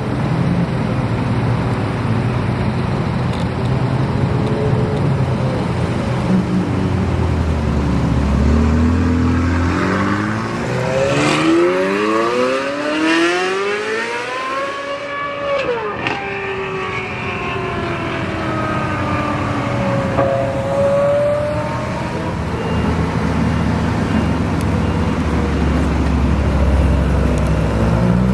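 Sports car engines accelerating hard. One car's note climbs steadily for about five seconds in the middle, then drops abruptly. Deep low engine rumble comes before and after it, and another car begins revving up near the end.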